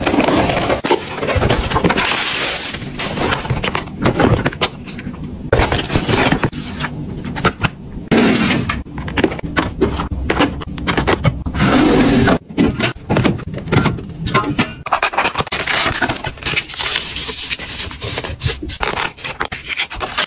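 Close-up handling of packaging: cardboard scraping and rustling as a parcel is opened, boxed skincare bottles clicking and sliding onto a shelf, and a sheet face mask being handled near the end. Continuous scraping and rustling with many sharp clicks.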